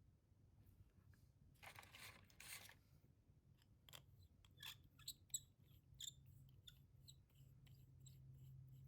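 Near silence with faint handling sounds from a plastic fountain pen: a brief rustle about two seconds in, then a run of small, irregular clicks and ticks.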